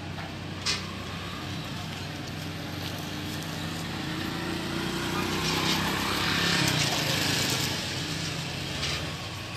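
Street traffic noise with a low steady hum. A motor vehicle passes close by, getting louder about five seconds in and fading near the end. There is a single sharp click under a second in.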